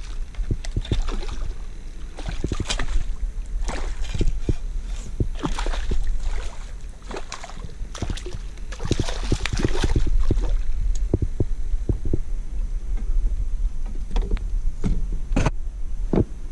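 Irregular knocks and clicks, with light water sounds, from a plastic fishing kayak and its gear being handled on the water, over a steady low rumble.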